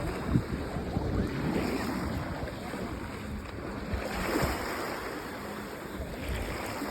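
Small sea waves washing in at the shore, with a slightly louder wash about four seconds in, and some wind on the microphone.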